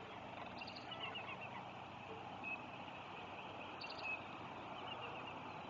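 Faint bird calls: short high chirping notes in quick runs, twice, over a steady outdoor background hiss.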